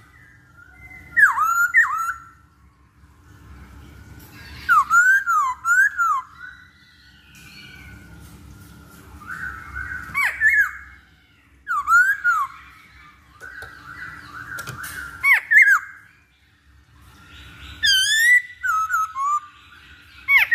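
Masked laughingthrush (poksay Hongkong) calling: loud, ringing whistled notes in short bursts of two or three every few seconds, most of them sliding down in pitch. A faint steady hum lies underneath between the bursts.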